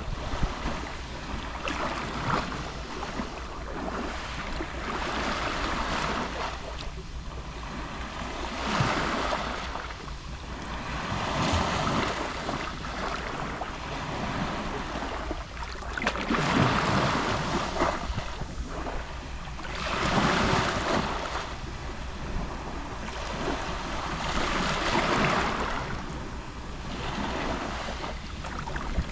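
Gentle Mediterranean sea waves lapping and washing on the shore, swelling and receding every few seconds, with a low wind rumble on the microphone.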